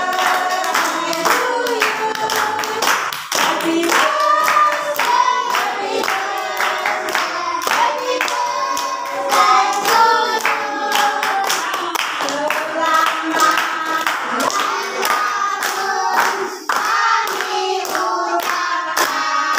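A group of voices singing a birthday song together, with hand-clapping kept in time with the song.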